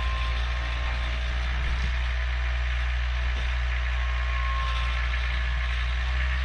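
Vehicle engine idling steadily, a low even hum with no change in speed.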